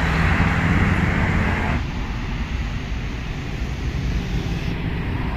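Road traffic: a steady low engine hum under a rushing noise that falls away about two seconds in.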